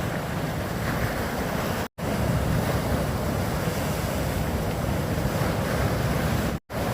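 Sea waves washing in, with wind buffeting the microphone: a steady rushing noise, broken twice by a brief silent gap where one clip cuts to the next.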